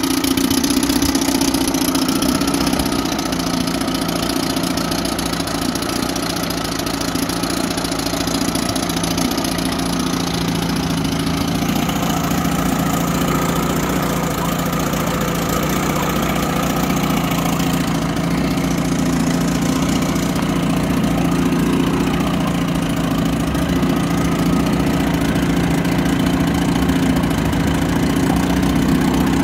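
1963 Mercury Merc 350 35 hp twin-cylinder outboard running steadily in a test tank, with water churning around its lower unit. This is its first test run after twenty years laid up, fitted with a new water-pump impeller and new magneto points.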